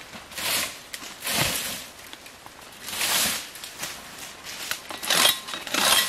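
Rustling and crunching of dry palm fronds, leaf litter and cut poles being moved about, in about five separate half-second bursts.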